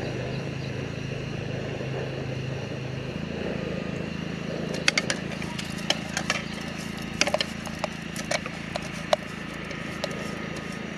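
Camping gas stove burner hissing steadily under the cooker, with a run of sharp metal clinks about five to nine seconds in.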